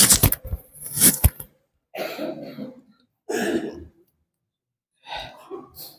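Microphone stand being handled close to the mic, giving sharp knocks and clicks in the first second and a half. Then a woman coughs and clears her throat three times into the close microphone.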